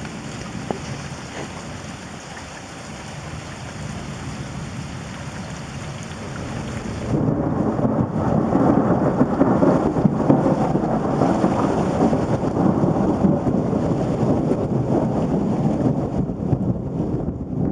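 Steady rain during a thunderstorm, then a long roll of thunder starting about seven seconds in and rumbling on to the end.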